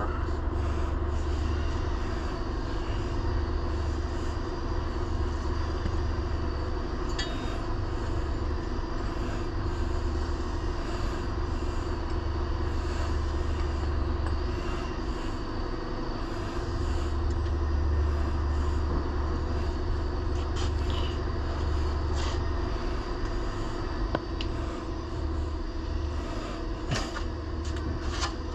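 Steady low rumble with a constant machine hum, with a few faint ticks near the end.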